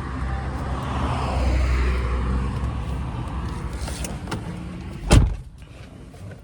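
Road traffic running past, then a car door slams shut about five seconds in, after which the outside noise is muffled.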